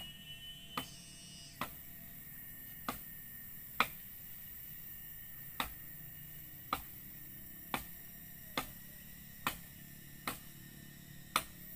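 Machete chopping at grass and stems, one sharp strike about every second, about a dozen strikes in all.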